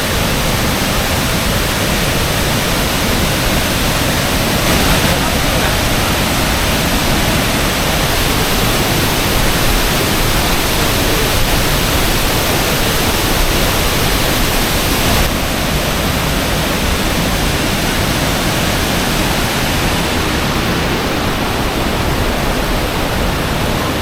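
Loud, steady rushing of a large waterfall, water crashing down in a continuous roar-like hiss. The higher part of the sound grows brighter for a stretch in the middle.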